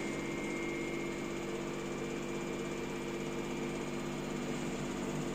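LG F4DV509S0E washer-dryer spinning its empty drum at about 1200 rpm on its direct-drive motor, a steady hum with a faint high whine. The drum is running smoothly without knocking against the cabinet walls. The top panel is removed.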